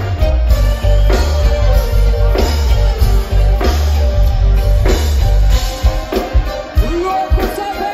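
Live reggae-rock band playing loud through the PA, heard from within the crowd: heavy bass and drums with electric guitar, a sharp drum hit landing about every second and a bit.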